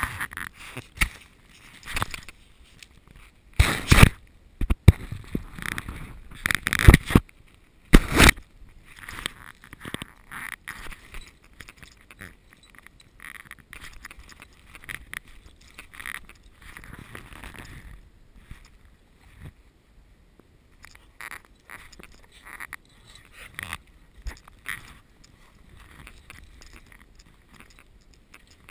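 Dogs nosing and bumping a camera in deep snow: a few loud knocks and scrapes against the camera about four, seven and eight seconds in, then scattered lighter clicks, scuffs and snow rustling.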